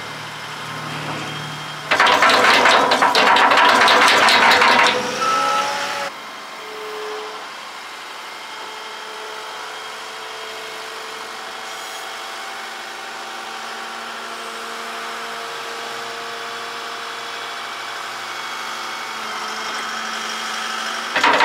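Wheel loader dumping a bucket of compost into a steel dump trailer: a loud rush of falling material for about four seconds, then the loader's engine running steadily.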